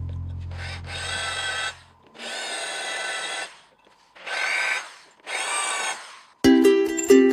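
Electric drill boring into the steel of an old bench vise in four separate bursts of about a second each, the bit squealing in the metal. A motor's low hum dies away over the first two seconds, and ukulele music comes in near the end.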